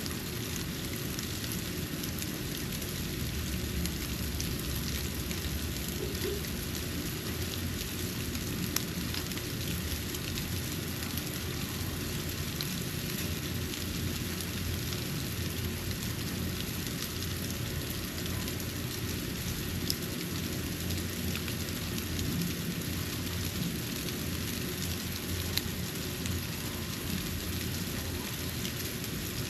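Snow falling and landing on surfaces: a steady hiss dotted with many small, faint ticks, with a low rumble underneath.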